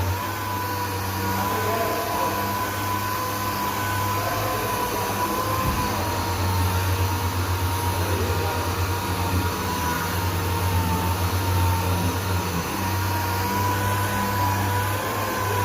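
Orbital sander running steadily while sanding epoxy primer on a car's side panel: a steady whine that wavers slightly in pitch over a low hum.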